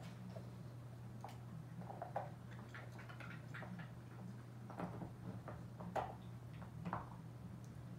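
Pit bull gnawing on a chew held between its paws: irregular clicks and crunches of teeth on the chew, a few of them louder, about five and six seconds in and near seven.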